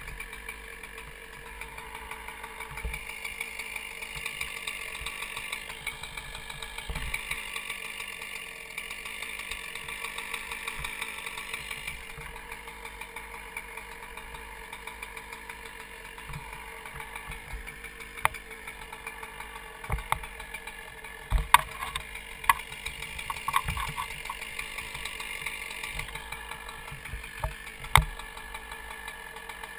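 Chainsaw engine running steadily. In the second half come several sharp knocks, the loudest about two-thirds of the way through and another near the end.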